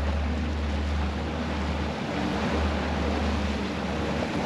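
Boat under way at trolling speed: the steady low drone of twin Mercury Verado V8 outboards, with wind on the microphone and the wash of the wake.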